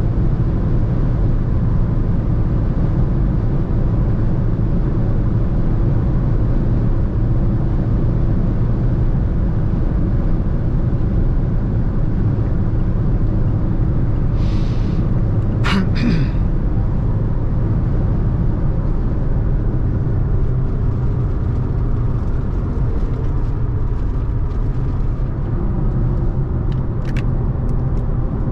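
Steady low rumble of a 2020 Fiat Egea (Tipo) hatchback with a 1.6 diesel engine cruising at motorway speed, its engine and tyre noise blending together. A few short sharp clicks come about halfway through.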